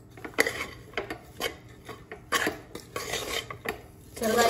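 Metal spoon stirring and scraping a crumbly green gram and rice flour mixture against the sides of a metal pot, in a run of irregular scrapes and clinks.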